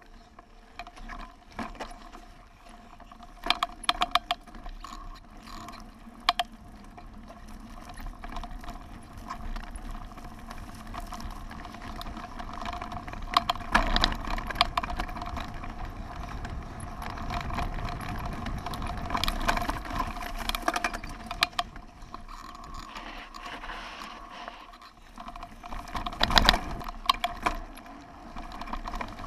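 Mountain bike ridden over rough dirt and grass: continuous drivetrain and chain rattling and ticking, with sharp knocks over bumps, loudest a little past the middle and near the end.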